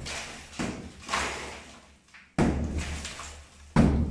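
Sledgehammer blows against a wall of hollow clay brick laid in cement mortar: three heavy strikes, roughly one and a half seconds apart, each crashing and trailing off as brick breaks.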